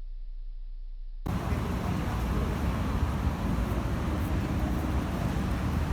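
A faint steady low hum, then an abrupt cut about a second in to loud, steady outdoor background noise with a deep rumble, of the kind road traffic makes.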